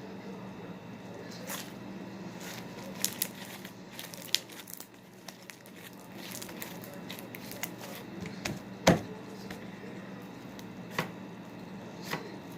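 Homemade slime being squished and stretched by hand, giving irregular sticky crackles and small pops. The loudest pop comes about nine seconds in.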